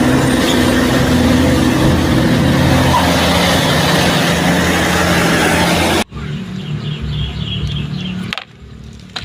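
A truck engine running loudly under a rushing noise, cut off abruptly about six seconds in. A quieter engine sound follows, fading lower near the end.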